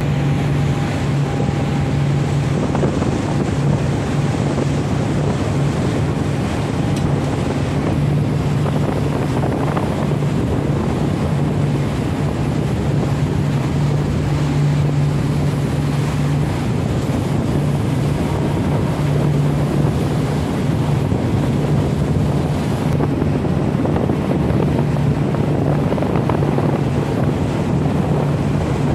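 A moving boat's engine running with a steady low hum, under wind buffeting the microphone and the wash of water from the boat's wake and the choppy sea.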